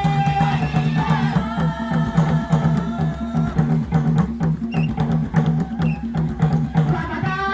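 Tumbuka traditional drums played fast in a steady, rapid beat, with a voice singing over them for the first three seconds and again near the end.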